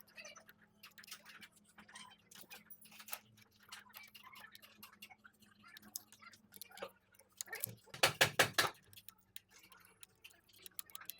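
Hand tools clicking and tapping on metal during work on a car, with a faint steady hum under them. Around eight seconds in comes a quick run of about six loud clicks.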